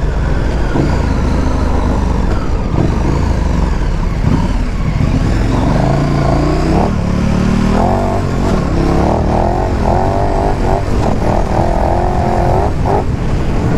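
KTM 1290's V-twin engine running under throttle on the move, its revs rising and falling through the second half, over a steady rush of road and wind noise.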